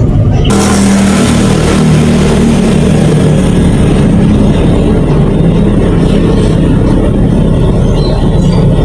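A vehicle engine running steadily while travelling, a low hum under a constant loud rushing noise that starts about half a second in.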